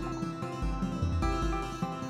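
Background music: a harpsichord-like plucked keyboard melody over a regular bass beat.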